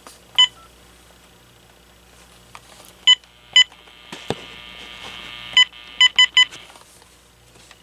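AT&T 7720 cordless phone giving short key-press beeps as its buttons are pressed: one beep, then two, then four in quick succession. About four seconds in there is a click, followed by a hiss lasting over a second.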